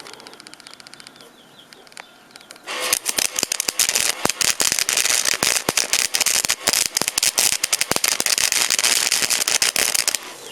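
Small 80-amp MIG welder arc crackling and spattering for about seven seconds, starting a few seconds in, while tack welding thin sheet metal. The tack does not hold.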